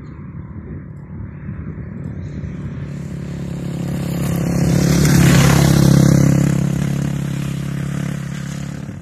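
Off-road rally motorcycle approaching at speed and passing close by, its engine note growing louder to a peak about halfway through and then fading as it rides away.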